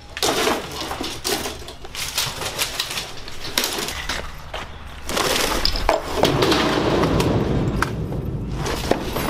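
Household junk clattering and crashing as it is handled and thrown into a steel roll-off dumpster. The knocks come irregularly, with a steadier low noise under them from about five seconds in.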